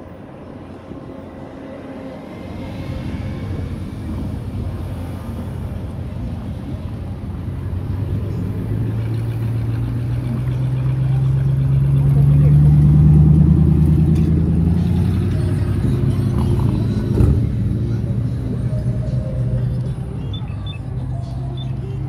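Road traffic at a street intersection: car and pickup-truck engines running close by. A low engine drone builds to a loud peak about halfway through, then stays steady, with one sharp knock a few seconds after the peak.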